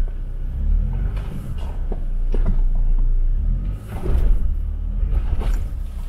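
Low engine rumble of an off-road vehicle backing up on a snowy trail, with a few scattered knocks.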